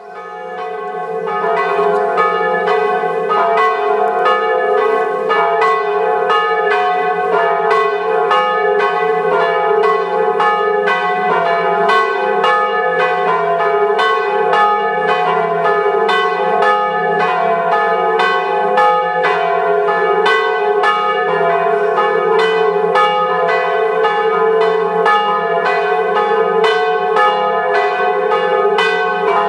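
Church bells pealing: strikes come in quick succession, about two a second, and the tones ring on and overlap.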